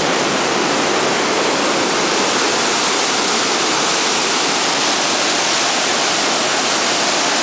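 The Chasm waterfall, water pouring through a narrow rock gorge, heard close from above: a loud, steady rush with no breaks.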